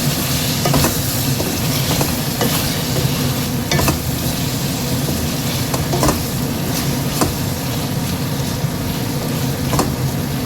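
Thick chicken gravy sizzling and bubbling in a pan on the stove while it is stirred, with a few light clicks of the spoon against the pan.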